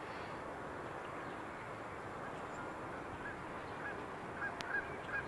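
Steady outdoor background noise, with faint short honking calls repeated several times in the second half, of the kind geese make.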